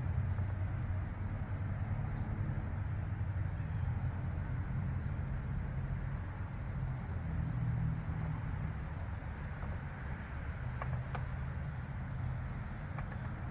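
Outdoor ambience: a steady low rumble with a thin, steady high tone above it, and a few faint short chirps near the end.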